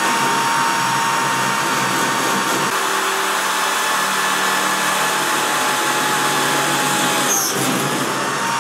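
Electric hand drill running at full speed, boring a hole through steel sheet: a steady high motor whine with the grinding of the bit in the metal. About seven seconds in, the whine dips briefly and then returns to speed.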